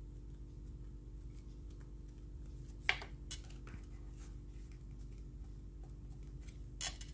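Faint rustling and light taps of black cardstock being handled and pressed together by hand, with a sharper tap about three seconds in and another near the end, over a steady low hum.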